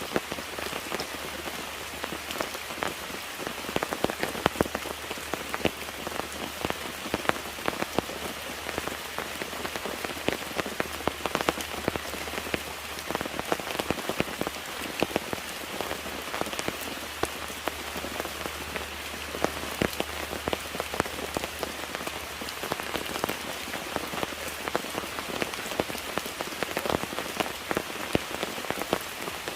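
Steady rain falling, with many close individual drops tapping on a surface over the wash of the downpour.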